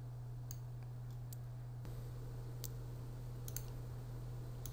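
Computer mouse clicking, about five separate clicks roughly a second apart, over a steady low hum.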